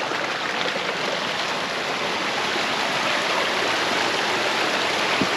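Running water of a small rainforest creek, a steady rush.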